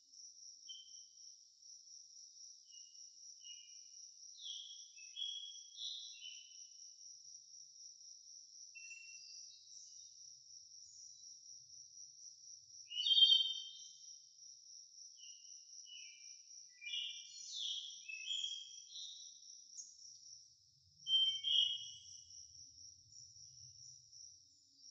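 Wild birds chirping and singing in short, scattered phrases over a steady high-pitched insect trill, with the loudest bursts of song about halfway through and again near the end.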